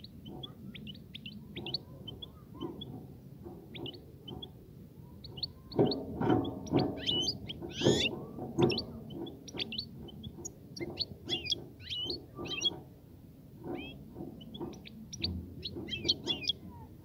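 European goldfinch singing: a fast run of short twittering chirps and trills, loudest and densest around the middle.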